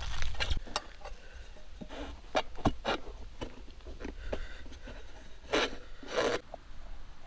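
Rubbing and scraping with scattered sharp clicks and knocks from tire-changing work on a motorcycle wheel, with two longer, louder scrapes near the end.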